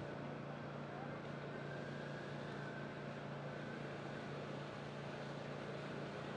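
Steady background noise with a low, even hum and no distinct events.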